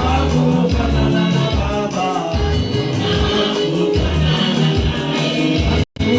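Live praise-and-worship music: voices singing over a band with strong low bass notes. The sound drops out completely for a split second near the end.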